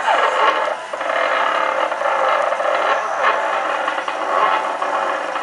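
NEMA 23 stepper motors of a hobby CNC router driving its axes: a continuous whine and buzz, with pitch sweeps near the start and about three seconds in as the motors speed up and slow down.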